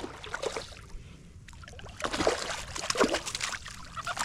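Water splashing and sloshing at a kayak's side as a hooked trout is fought in, with scattered small clicks and knocks; it grows busier about halfway through.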